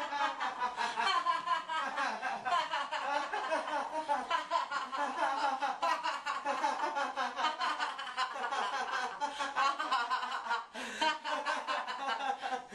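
Two people laughing continuously, with a short break a little after ten seconds in.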